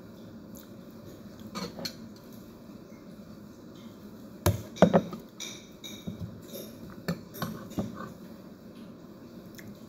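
Plate and fork clinking and knocking on a table: a couple of light clicks early, two sharp clinks about halfway through, then a string of lighter clinks as a fork works through a plate of salad.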